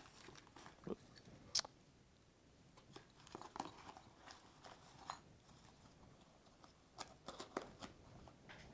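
Faint rustling of packing paper with light knocks and clicks as a ceramic mortar and pestle are packed into a small cardboard box and its flaps are folded shut. A few sharper clicks come near the end.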